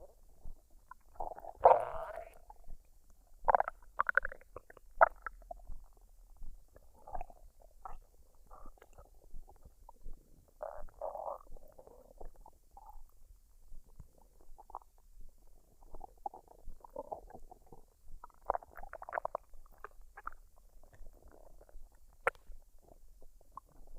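Human stomach gurgling as it digests a full meal: irregular bubbly gurgles come and go in bursts, the loudest about two seconds in.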